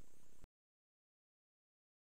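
Near silence: a faint hiss that cuts off about half a second in, followed by complete digital silence.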